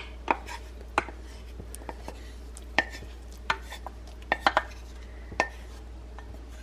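Wooden spoon knocking and scraping against a stainless steel saucepan as thick cooked oatmeal is scooped out into a bowl: scattered sharp knocks, with a quick cluster of them a little past halfway.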